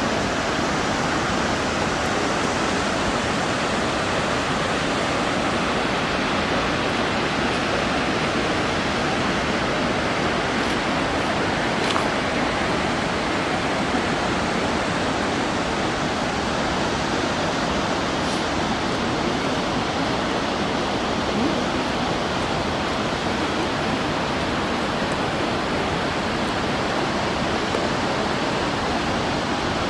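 Shōmyō Falls, Japan's tallest waterfall, pouring down: a steady, even rush of falling water with no change throughout.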